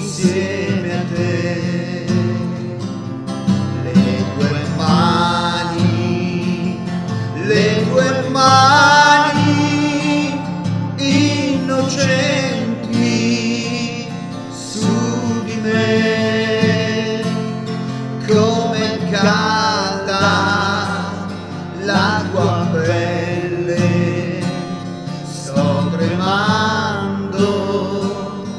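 Music: a man singing with acoustic guitar accompaniment, his held notes wavering with vibrato.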